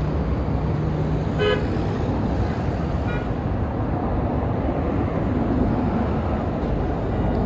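Street traffic running steadily, with a car horn giving a short toot about a second and a half in and a fainter toot around three seconds in.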